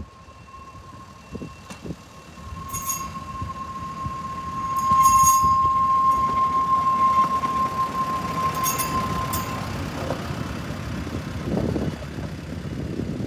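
A hi-rail truck running along railway track on its rail gear and passing close by, a steady rumble of engine and wheels on rail. A high, steady squeal from the wheels on the rail swells as the truck passes and stops after about nine and a half seconds. A few sharp clicks come through during the pass.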